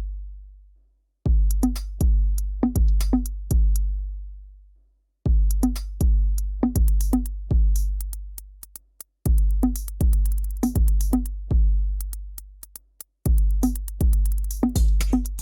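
Electronic background music: a drum-machine beat of deep, booming bass-drum hits with sharp clicks on top, in groups of four about every four seconds, each group broken off by a short silence.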